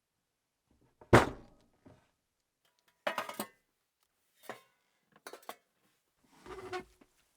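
Metal parts and tools being handled on a hard surface: a sharp knock about a second in, then several short clinks and rattles.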